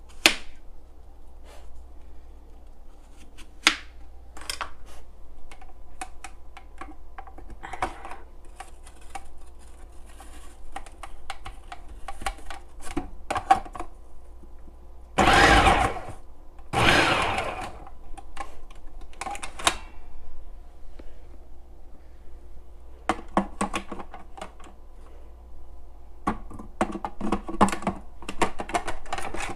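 Food processor running on its slice setting as apple halves are pushed down the feed chute: a steady motor hum with clattering, and louder cutting bursts as the apples go through the slicing disc, the loudest about halfway through.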